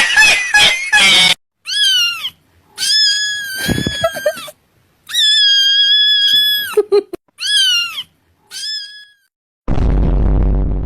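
Cat meowing: five high-pitched meows, two of them long and drawn out, several ending with a falling pitch. A low noisy rumble starts near the end.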